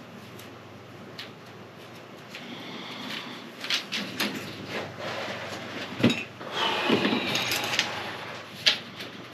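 Handling noises of a fishing rod blank section being worked on a workbench to find its spine: scraping rubs with sharp clicks and knocks. The loudest knock comes about six seconds in, and another sharp one near the end.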